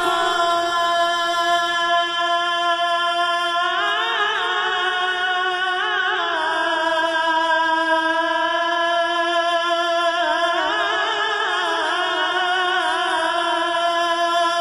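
A muezzin chanting the adhan, the Islamic call to prayer: one long phrase held by a single voice, with wavering ornaments about four, six and ten seconds in. At an iftar, this is the Maghrib call that marks the end of the day's fast.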